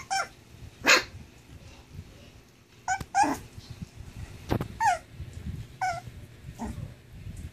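Puppy giving short, high yips and whines, about six separate calls that each drop in pitch, the loudest about a second in.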